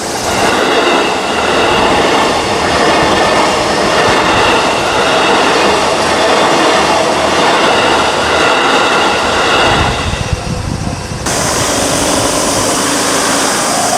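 JR Yokohama Line electric train running through a level crossing, its wheels and running gear loud and steady, easing off about ten seconds in. Near the end the crossing's electronic alarm tone is heard clearly again.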